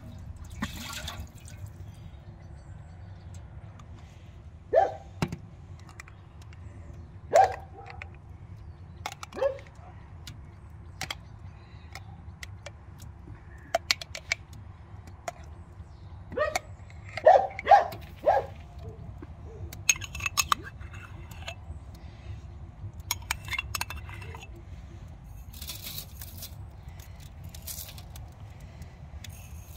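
A liquid is poured into a large enamel pot. Then comes a run of sharp clinks and plops as thick tomato paste is spooned out of a glass jar into it. Near the end dry spices are sprinkled in with light crackly patters.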